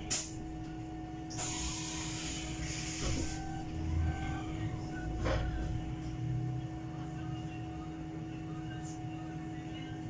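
Cabin sound of a Bolloré Bluebus 12-metre electric bus on the move: a steady drone with a constant electric whine, two short air hisses about one and a half and three seconds in, and a few clicks and rattles.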